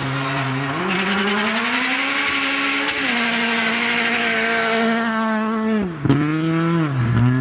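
Rally car engine revving hard as the car slides through a snowy bend and passes close by: the revs climb in the first second, hold high and steady for several seconds, then drop sharply about six seconds in with a sharp crack, dip and pick up again near the end.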